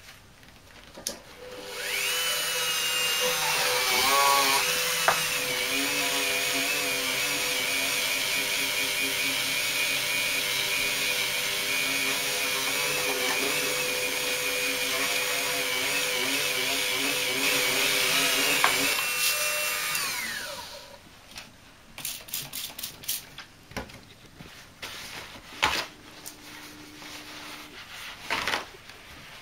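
Handheld rotary tool spinning a polishing wheel against a glass paperweight coated in polishing compound, for the final polish: a steady high motor whine that spins up about two seconds in and winds down about twenty seconds in. After that come scattered taps and the rustle of paper towel being handled.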